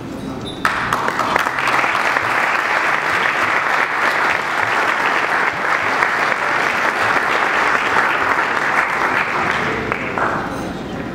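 Audience applauding, starting suddenly under a second in and dying away about a second before the end.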